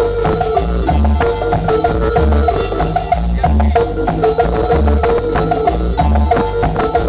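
Loud Latin dance music played through a sonidero sound system: a steady beat with heavy, booming bass and hand percussion.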